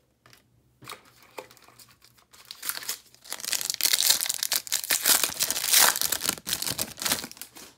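Foil trading card pack wrapper being torn open and crinkled by hand: a few soft handling ticks at first, then loud crackling from about two and a half seconds in that stops just before the end.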